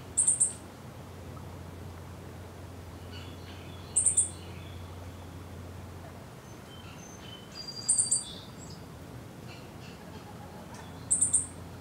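A bird repeating a short, very high-pitched call four times, about every four seconds, each call a quick run of two or three notes, with fainter, lower bird chirps between them.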